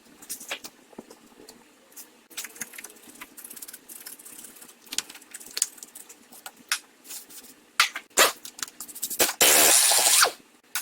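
Scattered light clicks and metallic clatter of tools and parts being handled, then near the end a power wrench runs for about a second, undoing a nut on the bolts that hold the shock absorber to the steering knuckle.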